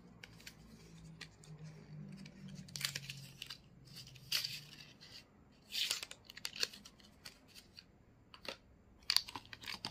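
Paper and cardboard packaging being handled: a folded paper insert and a cardboard tray rustling and scraping in several short bursts, the loudest about three, four and six seconds in, with a couple more near the end.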